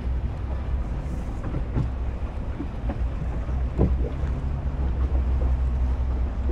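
Steady low rumble of a boat's engine running on the water, with wind on the microphone.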